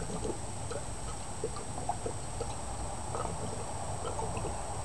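Diesel pouring from a plastic fuel can's flexible spout into a cast iron skillet, with small irregular gurgles and drips over a steady low background.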